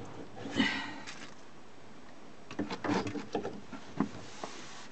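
Scattered clicks and knocks of hands working on a car's fuel line and its hose clamps from underneath, with a short scraping noise about half a second in and a run of clicks near the middle.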